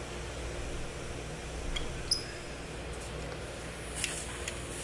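Metal tools being handled at a brake caliper bracket, giving a few light clicks and clinks; one sharp metallic clink about two seconds in rings briefly. A steady low shop hum runs underneath.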